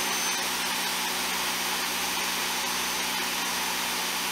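Greenworks 1700 PSI electric pressure washer running steadily under load, its motor and pump drawing about 11.3 amps while spraying through the stock nozzle. A steady hum over a hiss.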